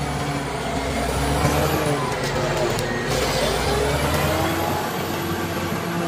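Caterpillar D7G bulldozer's diesel engine running under work. Its pitch dips about two seconds in and climbs back, with a thin high whine rising and falling alongside.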